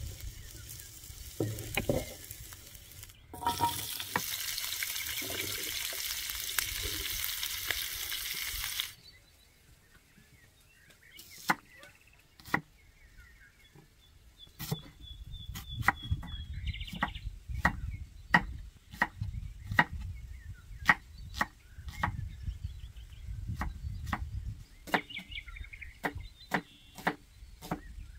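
Diced eggplant sizzling in hot oil in a frying pan while a wooden spatula stirs and scrapes it out; the sizzle cuts off abruptly about nine seconds in. Then a knife cuts an onion on a thick wooden log-slice board: sharp separate knocks, one or two a second, coming faster toward the end.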